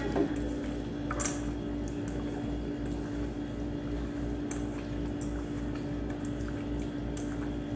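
Hands squishing and kneading raw chicken pieces in a stainless steel bowl, working in salt and pepper, with a few light clicks against the bowl. A steady low hum runs underneath.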